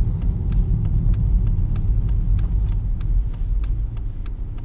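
Car running along the road, a steady low rumble of engine and tyres, with a sharp ticking about three times a second over it.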